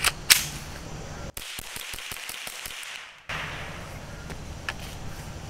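A single sharp shot from a Calico M-100 .22 LR rifle about a third of a second in, followed by steady outdoor background with a few faint clicks.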